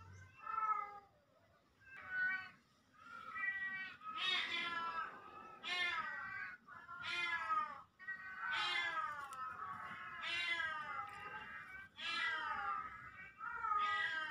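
Siamese cat meowing over and over, about ten drawn-out meows one after another, each sliding down in pitch at its end.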